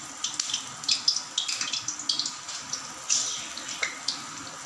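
Bottle-gourd and gram-flour kofta batter deep-frying in hot oil in a steel kadhai: a steady sizzle with many small crackles and pops.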